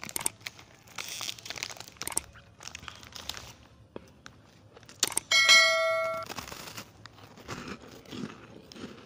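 Plastic foil wrapper of a chocolate wafer snack crinkling and tearing as it is opened. About five seconds in comes a loud bell-like ding lasting about a second, the loudest sound.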